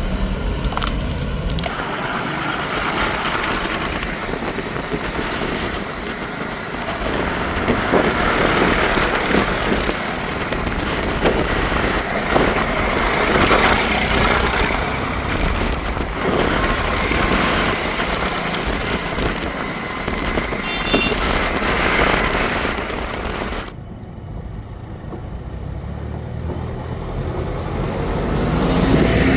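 Diesel engine of a heavy vehicle running, loud and steady, with an abrupt change in the sound about three-quarters of the way through.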